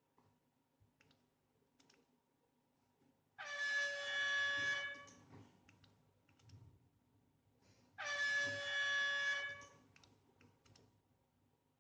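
Motor driven by a CamShooter motion controller whining at one steady pitch in two short runs of about a second and a half each, a few seconds apart, with faint clicks between them. This whine is the noise the title calls a sound issue.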